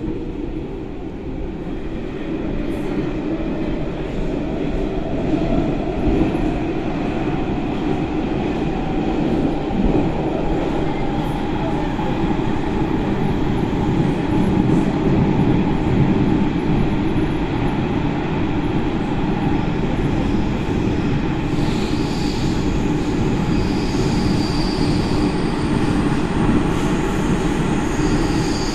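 Athens Metro Line 3 train running at speed, heard from inside the passenger car: a steady rumble and rush of wheels on rail, with a whine that rises in pitch over the first several seconds. High-pitched wheel squeal sets in about three-quarters of the way through and comes back near the end.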